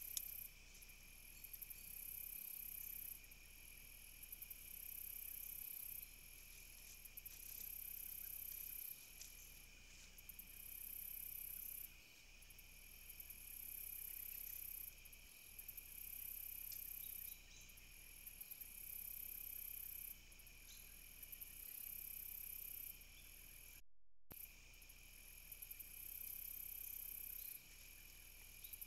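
Crickets and other insects calling: a steady high trill, with a higher, buzzier insect call switching on and off every couple of seconds. The sound cuts out briefly about 24 seconds in.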